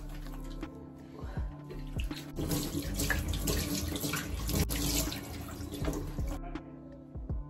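Water running from a tap into a stainless steel sink and splashing as cupped hands rinse soap off a face. It starts about two seconds in and cuts off about a second before the end, over soft background music.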